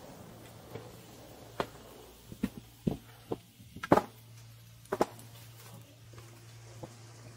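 Chairlift boarding station: a steady low hum of the lift machinery, with a scatter of sharp clacks and knocks as skis, poles and the incoming chair rattle. The loudest knock comes about four seconds in.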